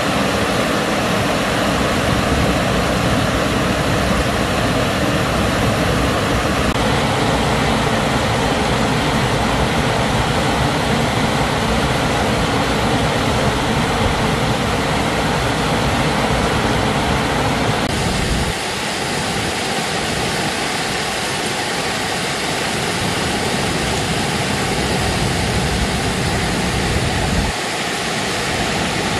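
Water rushing steadily over a small rock waterfall on a river. The sound shifts abruptly in tone and level a few times, about 7, 18 and 27 seconds in.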